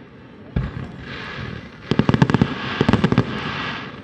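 Aerial fireworks shells bursting: one bang about half a second in, then a quick string of bangs and pops from about two seconds in.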